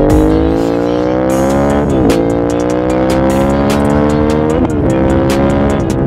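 Honda RC51's 1000cc 90-degree V-twin engine and exhaust under acceleration on the road, its pitch climbing steadily and dropping sharply at each upshift, three times.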